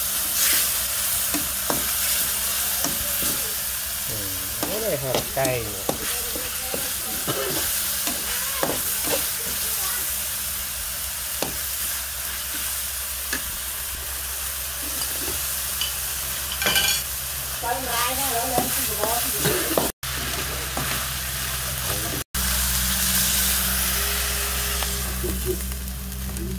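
Food sizzling in a steel wok while a metal spatula stirs, scraping and clicking against the pan.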